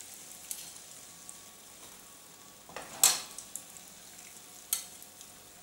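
A kefta patty frying in hot oil in a nonstick pan, sizzling steadily, while a slotted metal spatula turns and lifts it, scraping the pan a few times, the loudest about three seconds in.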